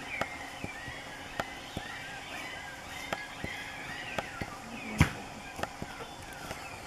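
Night forest ambience: many short, repeated chirping calls from small night creatures, with scattered sharp clicks and one loud snap or knock about five seconds in.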